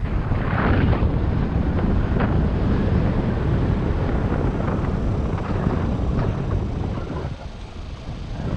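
Wind buffeting the microphone of a camera riding on a moving bicycle, a loud, dense rushing that eases for a moment near the end.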